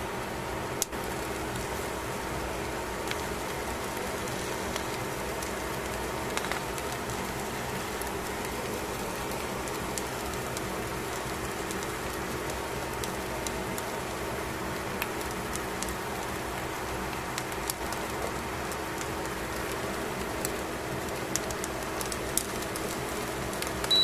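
Fish fillets on aluminium foil sizzling as they grill: a steady hiss with scattered small pops and spits, over a steady low hum.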